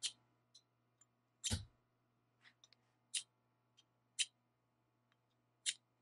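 Ferro rod (fire-starter flint) struck down the steel of a saw blade, throwing sparks: four short, sharp scrapes spaced a second or more apart, the first with a dull knock under it. Faint.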